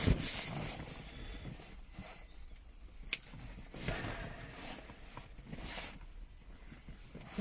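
Hands handling car wiring and plastic trim: irregular rustling and scraping, with one sharp click about three seconds in.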